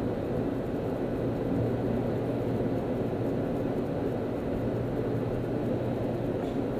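Steady cabin noise of a car cruising at freeway speed: a constant low hum under an even rush of road noise.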